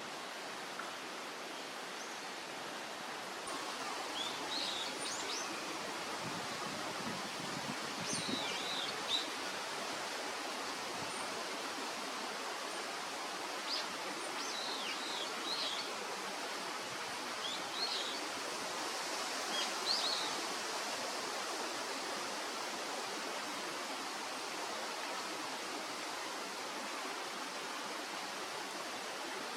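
Wild birds giving short, high calls, quick downward-sweeping notes scattered through the first two-thirds, over a steady rushing background noise.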